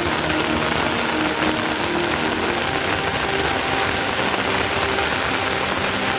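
Steady rain falling hard, an even hiss with no break, with faint short held tones underneath.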